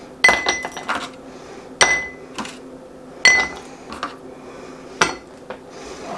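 A drinking glass clinking sharply four times, about a second and a half apart, each knock ringing briefly, with a few lighter clicks after the first, as a cocktail is being made.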